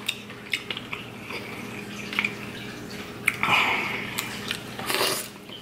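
Mussel shells clicking as they are handled and pulled apart by hand, with wet eating sounds from mouth and fingers, loudest for about a second from the middle on and again near the end. Underneath runs the steady trickle and hum of an aquarium filter.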